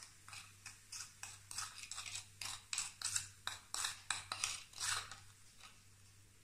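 Metal teaspoon stirring and scraping in a small glass bowl, quick repeated strokes about three a second, as baking soda is slaked with vinegar; the stirring stops about five seconds in.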